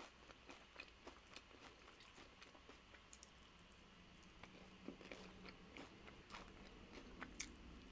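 Faint crunching and chewing of tortilla nacho chips, with many small scattered crackles and clicks.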